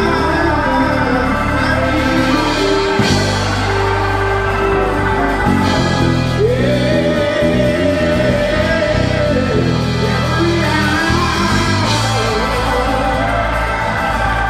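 Church singing with voices carried over electric keyboard accompaniment: long held chords over a steady bass, with one long sung note held about halfway through.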